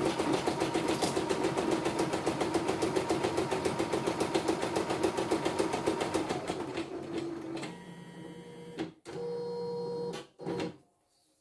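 CNY E960 embroidery machine stitching at speed, a fast even chatter of needle strokes, running without trouble on a newly fitted bobbin case. Its stitching stops about two thirds of the way in, followed by short, quieter steady motor whines as the hoop is moved, then quiet.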